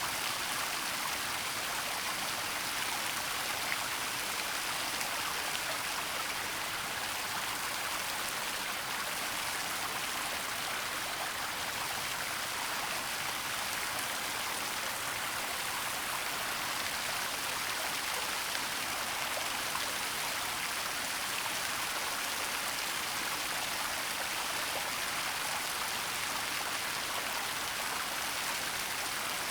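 Waterfall and running water in a forest: a steady, even rush of falling water.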